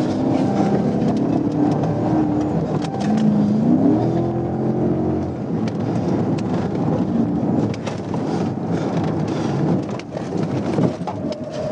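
Patrol car engine and road noise at pursuit speed, the engine note rising about three and a half seconds in as the car accelerates.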